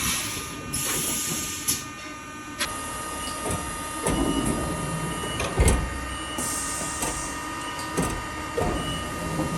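Haas VF-2SS CNC vertical machining center running: a steady mechanical whine with spells of high air hiss and several clunks and knocks.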